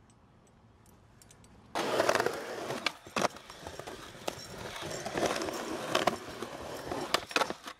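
A skateboard rolls over rough, cracked concrete, starting suddenly about two seconds in. The wheels give a continuous gritty rumble, broken by several sharp clacks from the board that bunch together near the end.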